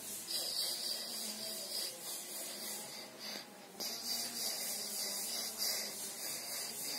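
A hand rubbing and sliding over stacked playing cards, the card faces scraping against each other and the carpet in a soft, repeated rustle, with a short lull about halfway through.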